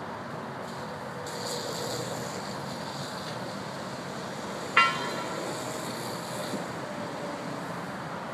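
Steady roadside traffic noise with the hiss of a fire hose spraying water on a burning car. About five seconds in there is one sharp, short pitched blast, the loudest sound.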